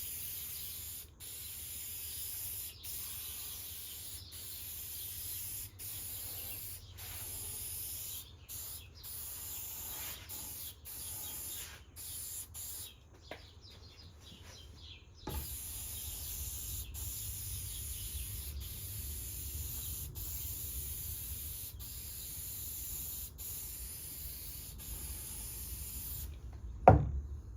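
Finish being sprayed: a steady hiss in passes broken by brief stops, with a pause of about two seconds in the middle. A single sharp knock near the end.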